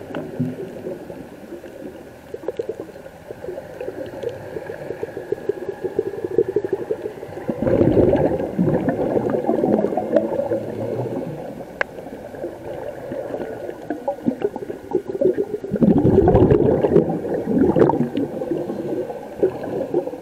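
Scuba diver's exhaled bubbles bursting from the regulator, heard underwater as gurgling, crackling bubbling. Two long loud exhalations come about 8 and 16 seconds in, with quieter bubbling between.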